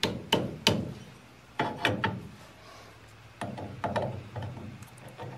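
Morris Minor rear half shaft being wiggled and turned by hand at its hub flange, its splines clicking and clunking against the differential as they are worked into line. Three sharp knocks come in the first second, then two more groups of clunks about two and four seconds in.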